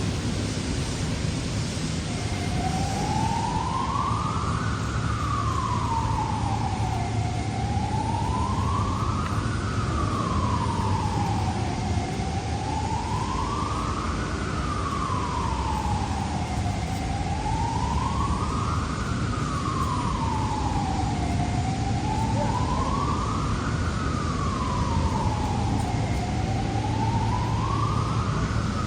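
A slow wailing siren, its pitch rising and falling about every four and a half seconds, begins about two seconds in over a steady low machinery rumble.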